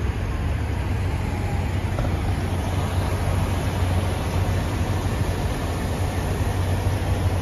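Semi-truck diesel engine idling: a steady low rumble.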